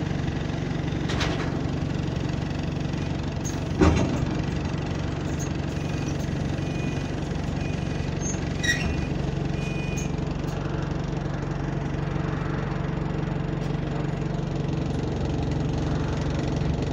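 City bus's diesel engine running steadily, heard from inside the passenger cabin. A loud knock comes about four seconds in, and a sharper click comes near the ninth second.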